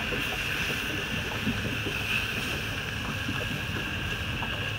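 Steady wind noise on the microphone over the rush of river water around an anchored boat.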